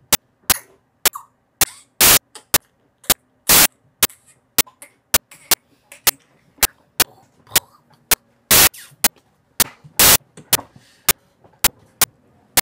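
Sharp clicks repeating steadily about twice a second, a few of them louder and longer than the rest, with faint low noise between.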